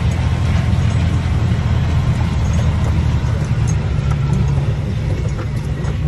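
Heavy corn-harvest machinery running: a loud, steady, low engine rumble.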